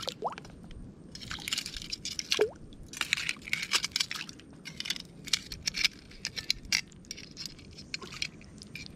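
Metal tongs working in wet sand and shallow water to grab a mangrove crab: wet squishing and crackling in repeated bursts of about a second, with a couple of short squeaks.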